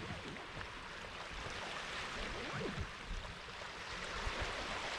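Steady outdoor noise of wind and small waves lapping on a pebble lakeshore, with an uneven low rumble of wind on the microphone.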